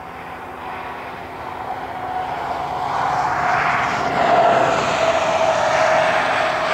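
Three GE diesel-electric freight locomotives (two ES44ACs and an AC4400CW) running light with no cars, approaching and growing louder over the first few seconds, then holding steady. Engine noise with a steady whine over it.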